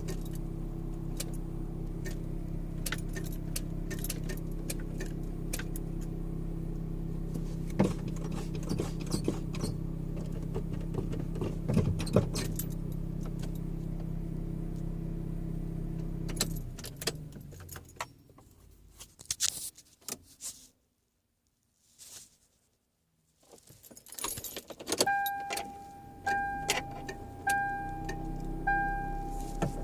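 A 1996 Toyota Corolla's engine runs steadily, then shuts off and winds down about 17 seconds in. After a few seconds of near silence, the car's warning chime beeps four times near the end, with faint clicks around it.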